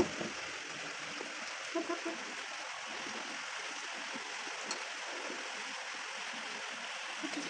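Steady hissing background noise, with a faint clink of a metal spoon against a glass bowl about two-thirds of the way in.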